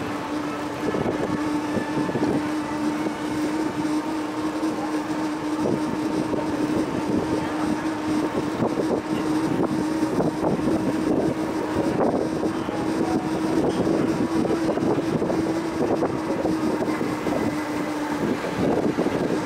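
Steady rumble of wind on the microphone and road noise from a moving bicycle, with a constant low hum running through it.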